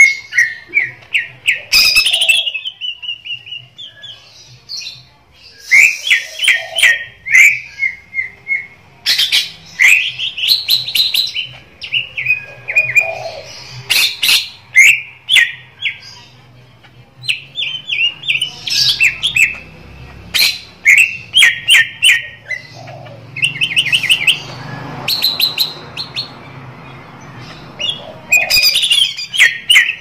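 Caged songbird singing: repeated bursts of rapid, high chirping notes with short pauses between phrases, mixed with sharp clicks.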